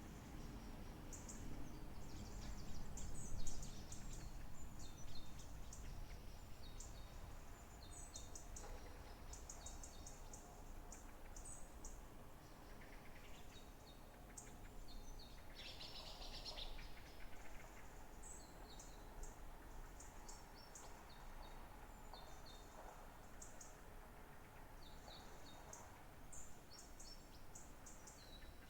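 Several small songbirds chirping and singing, with short high notes repeating throughout and a denser trill about halfway through, over a faint low background rumble.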